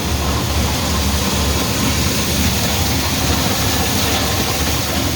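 Corn grain dryer running: a steady, loud machine noise with a deep hum under an even rushing haze.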